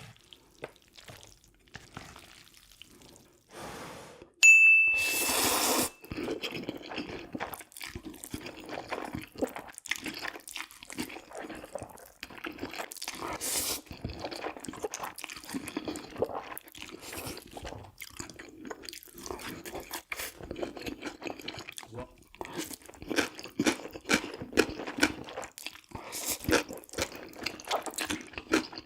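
Close-miked eating sounds: wet slurps, chewing and small clicks of utensils. About four seconds in, a short beep is followed by a loud hiss of a little over a second.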